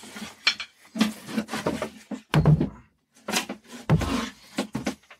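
Wooden cabin floor plates being lifted and handled, knocking and clattering against the boat's woodwork, with two heavier thuds about two and a half and four seconds in.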